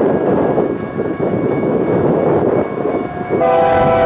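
Wind buffeting the microphone, then about three and a half seconds in the air horn of an approaching CSX freight locomotive starts blowing, a steady chord of several notes.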